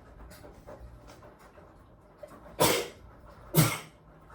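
A woman sneezing twice, about a second apart, in the second half, set off by sniffing ground pepper.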